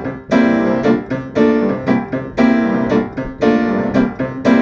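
Piano playing repeated chords in a steady rhythm, about two a second.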